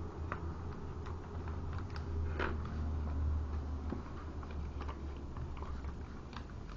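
Origami paper being handled and folded by hand: faint scattered rustles and small crisp clicks as the paper is creased, over a steady low hum.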